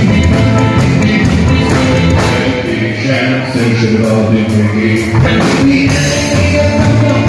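Live rock'n'roll band playing: upright double bass, hollow-body electric guitars and drum kit together at a steady, loud level.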